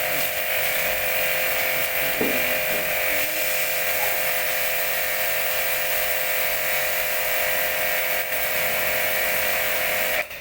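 Orion Super Jet 100 high-pressure washer running: a steady motor whine with a wide hiss, which cuts off suddenly near the end.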